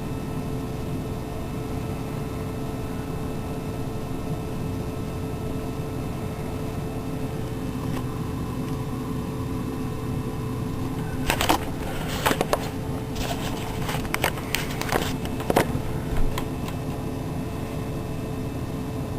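Steady mechanical hum, like a fan or appliance running, with a short run of sharp clicks and taps about two-thirds of the way through.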